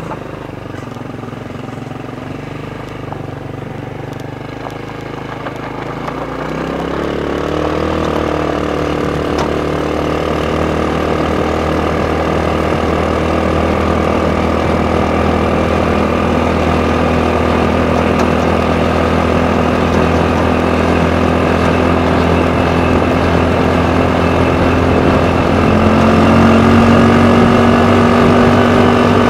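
Go-kart's small engine running as it drives along, rising in pitch and getting louder about six seconds in as it speeds up, then holding a steady cruising note, with a slight step up in pitch near the end.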